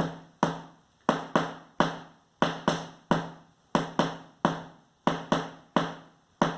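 A spoon beating a rhythm on a hardback book, used as a stand-in for a bass drum: about fifteen dull strikes in a repeating pattern, each dying away quickly, some with a low ring.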